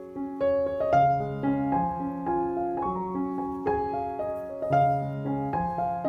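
Background piano music: a calm melody of notes that each strike and fade, several sounding together.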